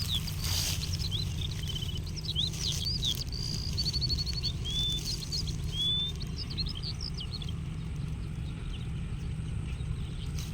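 Birds chirping and singing, with many short rising and falling chirps and a couple of quick trills, over a steady low rumble. The birdsong stops about seven and a half seconds in, leaving only the rumble.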